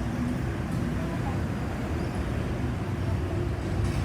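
Steady road traffic noise with a low engine rumble; no siren sounds at this point.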